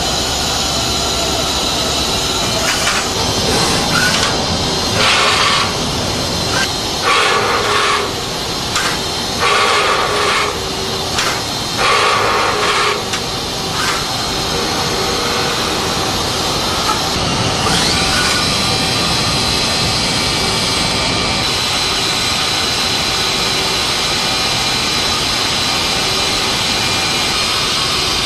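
Mazak Quick Turn Nexus 200-II MSY CNC turning centre machining a part: steady machine noise, with a run of short bursts of cutting in the first half. About two-thirds of the way through, a whine rises as a spindle speeds up and then holds as a steady high tone.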